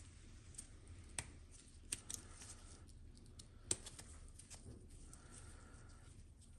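Faint handling noise of gloved hands assembling a coil-over RC shock, with a few sharp little clicks of the plastic and metal parts knocking together, the loudest a little under four seconds in.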